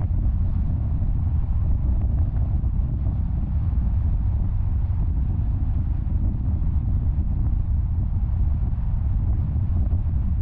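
A car driving along a paved road: steady low road noise from tyres and wind, unchanging throughout.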